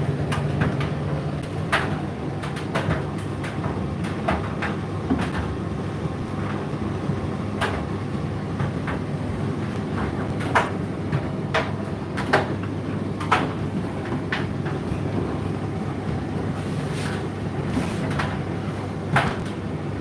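Indesit IDC8T3 condenser tumble dryer running mid-cycle: a steady low motor and drum hum with irregular light knocks and clicks every second or so as the drum turns.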